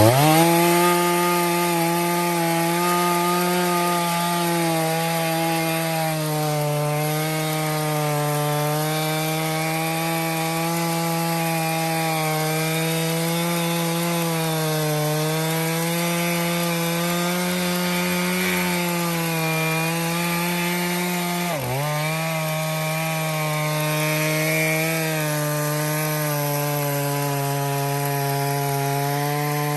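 Stihl MS461 two-stroke chainsaw on an Alaskan mill, revving up to full throttle and ripping lengthwise through a cedar log, its pitch wavering slightly under the load of the cut. About two-thirds of the way through, the pitch drops sharply for an instant and then picks back up.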